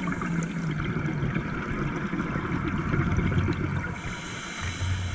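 Muffled underwater sound picked up through a camera's waterproof housing: a low, rough bubbling rumble, with a brief low hum near the end.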